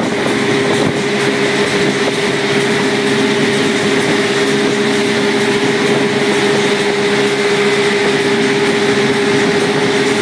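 Speedboat engine running steadily at speed, one constant engine tone over the rush of the wake and spray.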